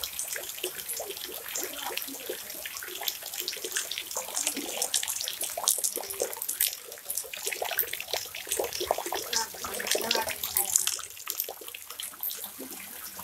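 Floodwater flowing and splashing: a steady wash of water with many small splashes and gurgles.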